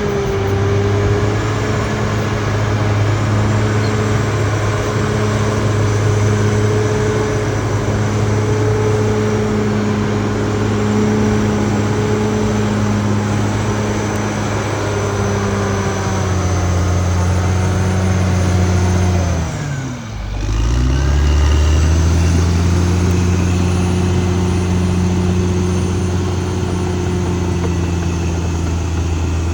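Caterpillar D6R XL bulldozer's diesel engine running steadily under load. About two-thirds through, the engine speed sinks sharply, then climbs quickly back to a steady pull.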